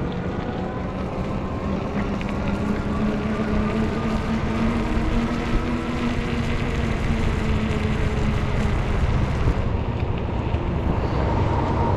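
Riding noise on a fat-tire electric bike: wind buffeting the microphone and tyre rumble on the road, with a steady hum held underneath.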